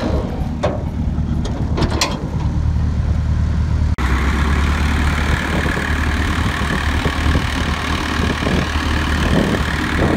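Flatbed tow truck's engine running steadily, with two sharp metallic clanks in the first two seconds as the loading ramp is handled. About four seconds in the sound cuts to the truck running louder, with a steady higher hum, while its bed is tilted with a car on it.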